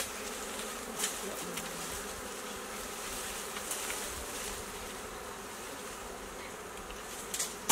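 Many wild bees buzzing steadily around their nest in the bamboo, with a few short snaps or rustles of stems and leaves about a second in and near the end.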